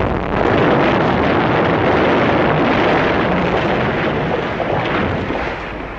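Explosive rock blasting: a sudden blast followed by a long, loud rumbling roar of falling debris that eases off near the end.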